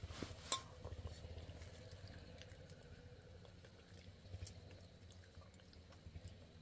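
Faint clinks and taps of utensils against dishes, with one sharper click about half a second in.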